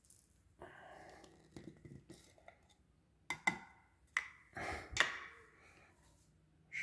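Scattered clicks, taps and a short rustle from a Krups blade coffee grinder being handled and opened after pulse-grinding beans; the motor is not running.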